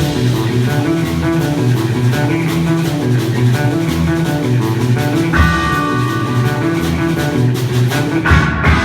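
A band playing loud rock music, with electric guitar, bass guitar and drums keeping a busy beat. A held higher note comes in about halfway through, and a loud hit near the end leads into a ringing final chord.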